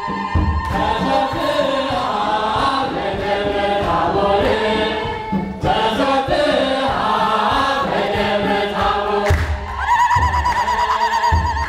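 A Sunday-school choir singing a church hymn together, several voices in a chant-like line. About ten seconds in, a steady wavering instrumental tone and a low pulsing beat come back in under the singing.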